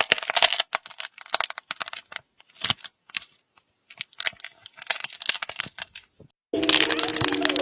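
Soft slime being squished and stretched by hand, giving irregular sticky crackles and pops. Music starts near the end.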